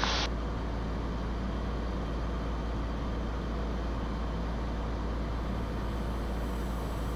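Cirrus SR20's single piston engine and the airflow running steadily, heard from inside the cockpit in cruise-descent.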